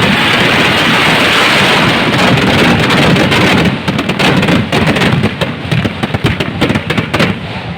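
A firework hissing loudly and steadily for about three and a half seconds, then breaking into rapid, irregular crackling pops.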